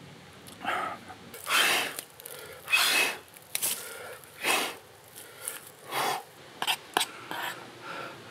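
A person eating spicy ramen noodles: about six loud slurps and noisy breaths through the mouth, each about half a second long, with a few short clicks near the end.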